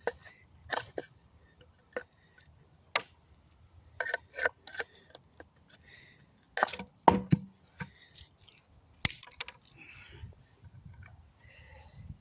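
Hammer knocks and metallic clinks from knocking nails out of a wooden pallet plank: irregular sharp strikes, the loudest cluster about seven seconds in.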